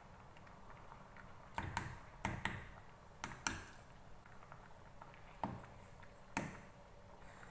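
Wooden spoon tapping against an aluminium saucepan of cooked lentils: three quick pairs of taps, then two single knocks further on.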